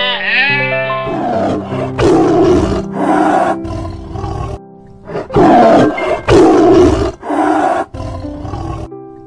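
Lion roaring: a series of rough, loud roars and grunts, the loudest about halfway through. The first second holds the end of a goat's wavering bleat, and background music plays underneath.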